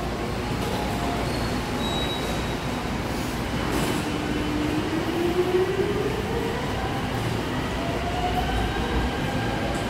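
Seoul Subway Line 5 electric train pulling out of an underground station: a steady rumble of wheels on rail, with the traction motor whine rising in pitch twice as the train gathers speed.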